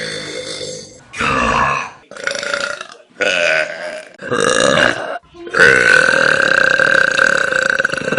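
Human burping: a burp trails off about a second in, then four short burps about a second apart, then one long, drawn-out burp held at a steady pitch for about four seconds.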